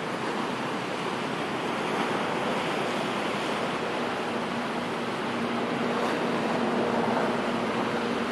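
Boeing 929 Jetfoil hydrofoil ferry running foilborne on its gas-turbine water jets: a steady rush of water spray and air, with an engine hum growing in over the second half as it draws nearer.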